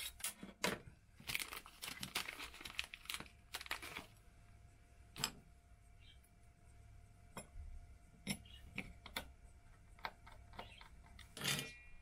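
Crinkling of a small plastic bag of screws and light clicks of small metal parts being handled on a wooden workbench, in a dense cluster early on and then scattered ticks.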